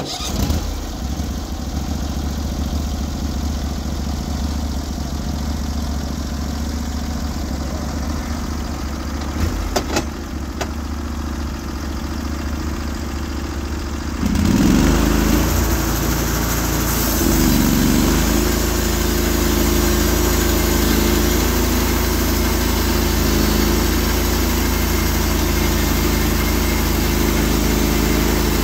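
Norwood HD36v2 band sawmill's gas engine starts and runs steadily, then about fourteen seconds in throttles up and rises in pitch as the blade is brought up to speed. From then on it runs steady and loud under load as the band blade cuts into the elm log.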